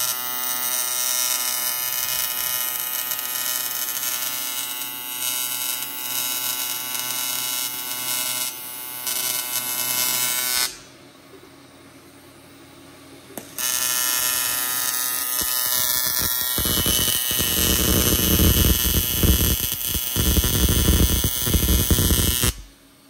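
TIG welding arc buzzing steadily while the intercooler tubes are welded. It stops for about three seconds near the middle, starts again with a heavier low buzz, and cuts off suddenly just before the end.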